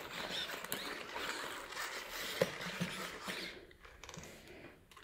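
Sony Aibo ERS-7 robot dog moving its joints: a mechanical rustling with small clicks and one sharper click about two and a half seconds in. It dies down about three and a half seconds in.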